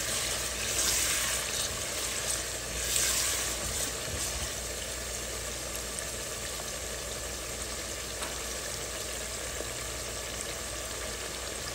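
Chopped onions frying in oil in a pot, sizzling steadily. A spatula stirs them in the first few seconds, then the sizzle goes on evenly.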